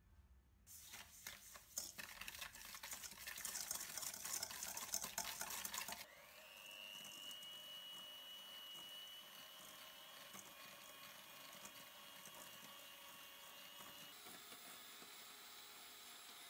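Electric hand mixer beating egg yolks and sugar in a stainless steel bowl. Its motor starts about six seconds in with a rising whine that settles into a steady high whine, then gives way to a steadier hum near the end. Before the mixer starts there is a louder stretch of rustling, scraping noise.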